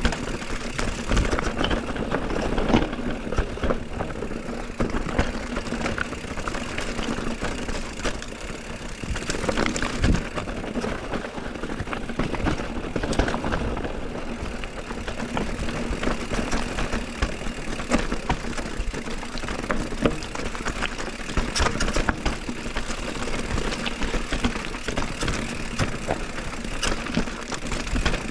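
Mountain bike being ridden over rough trail: a continuous noise of tyres and bike with frequent knocks from the wheels hitting rocks and bumps.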